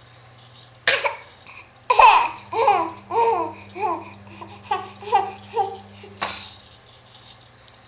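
A young child laughing in a run of about ten short, falling bursts, with a sharp click just before and another just after.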